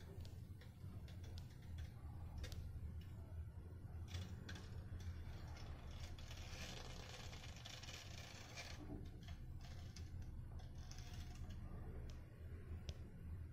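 Faint handling noise: scattered small clicks and taps, with a longer rustle between about six and nine seconds in, over a steady low hum. No erhu is being played.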